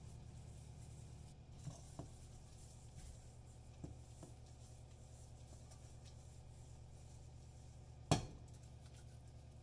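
Stainless steel mixing bowls being handled while oil is smeared inside them: a few faint light clinks, then one sharp clank of a steel bowl against the glass stovetop about eight seconds in, over a low steady hum.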